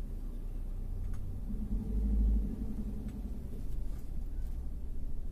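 Low, steady road rumble of a car heard from inside its cabin while driving. A louder low hum swells for about a second near the middle, then fades back.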